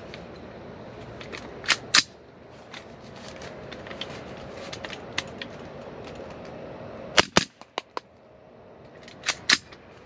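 Sharp .22 LR rifle shots from an AR-15 running a CMMG .22 LR conversion bolt with a forced-reset trigger and 3D-printed auto trip. The shots come in quick pairs, three times.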